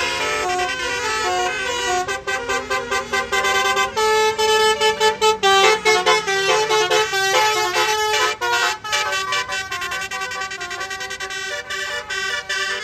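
Basuri multi-tone musical bus horns playing a tune, note after note. About two seconds in they break into fast, choppy staccato toots, which ease off toward the end.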